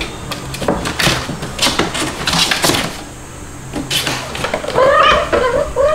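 Cats scampering and pouncing in play on a wooden floor and cardboard box: a run of quick scuffles, scratches and knocks, then a kitten mewing a few times near the end.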